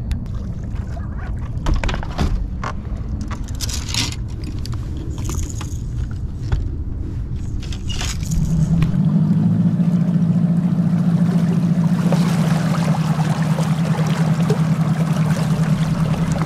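A boat's outboard motor runs with a steady hum from about eight and a half seconds in. From about twelve seconds a rushing hiss of water past the hull joins it, as the boat gets under way. Before the motor, scattered knocks and clicks of gear being handled on the boat.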